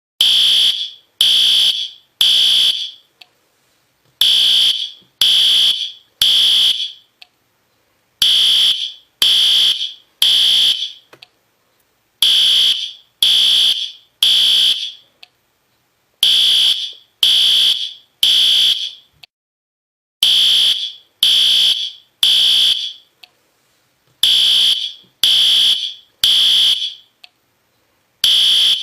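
System Sensor P2R fire alarm horn strobe sounding the temporal-three evacuation signal. Three high-pitched beeps of about half a second each are followed by a pause of about a second and a half, and the group repeats every four seconds.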